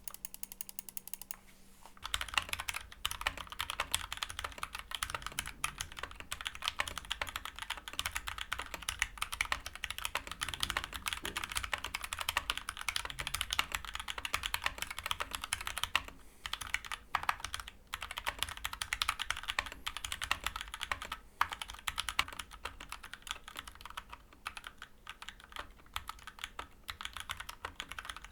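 Fast, continuous typing on an Akko 3061S 60% mechanical keyboard with Gateron Orange tactile switches and PBT keycaps. It starts with a few scattered keystrokes, then a steady rapid clatter with brief pauses. The stock, unlubricated switches sound a little hollow.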